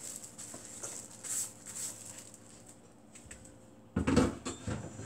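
Blanched spinach being slid off a wooden cutting board into a stainless steel bowl: soft rustling and light taps, then a few loud knocks about four seconds in.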